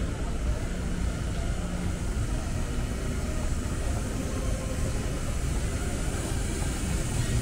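Steady city street noise: a constant low rumble of traffic with a general hum.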